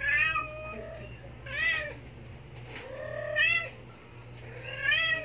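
Young kitten meowing repeatedly: four short mews that rise and fall in pitch, about a second and a half apart.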